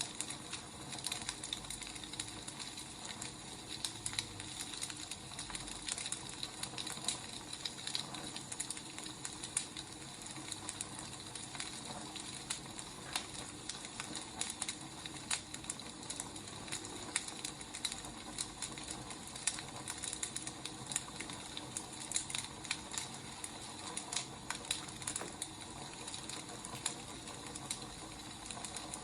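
Wood fire crackling: irregular snaps and pops over a steady soft hiss.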